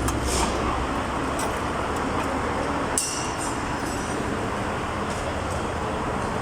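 Steady workshop background noise with a low hum, and one sharp click about three seconds in.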